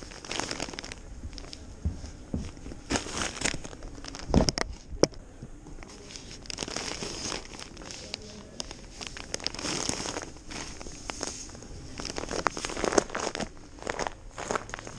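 Paper sugar sacks rustling and crinkling as they are gripped, lifted and slid across a metal truck bed, with a couple of sharp thumps about four to five seconds in.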